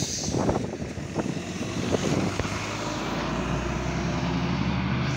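Irisbus Citelis city bus pulling away from the stop, its engine building to a steady low drone from about three seconds in. Before that, a few knocks and rustles from the camera being handled.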